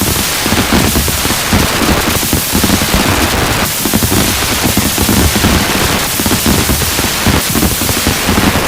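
Fireworks display: a dense, unbroken barrage of rapid bangs and crackles.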